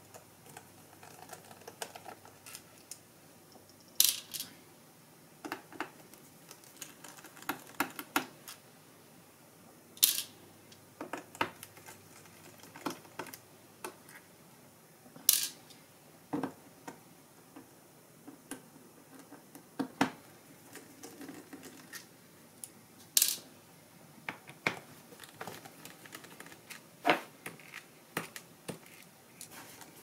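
Small screws being undone from a laptop's bottom panel with a precision screwdriver and set down, giving scattered light metallic clicks and ticks, with a few sharper clicks every several seconds.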